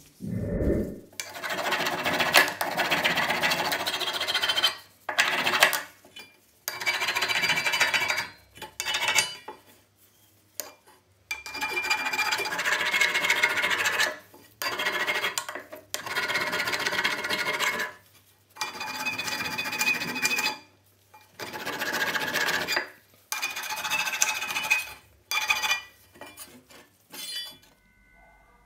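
A steel trowel blade being scrubbed by hand with an abrasive to take off rust. The rasping comes in a long series of strokes, each a second or two long, with short pauses between.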